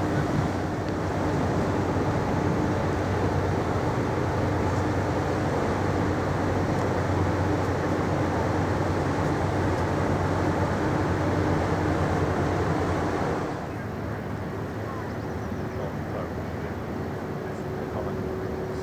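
Ferry engines and machinery running with a steady low hum and drone, over a dense rumble. The sound drops suddenly to a quieter hum about two thirds of the way through.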